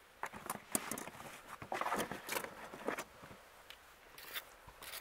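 Irregular rustling and crackling of dry dirt and grass being worked by hand over a bedded trap, busiest in the first three seconds.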